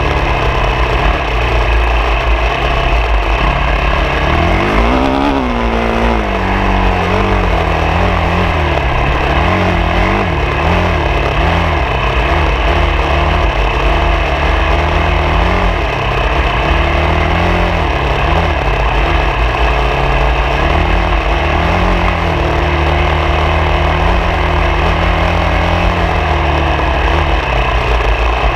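Off-road vehicle's engine running on the move: it revs up sharply about five seconds in, then rises and falls with the throttle over a constant heavy low rumble.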